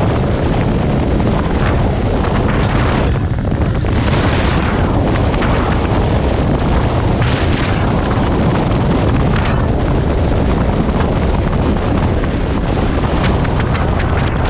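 Wind buffeting hard on the microphone of a moving motorcycle, a loud, gusty rumble with the bike's engine and tyre noise underneath.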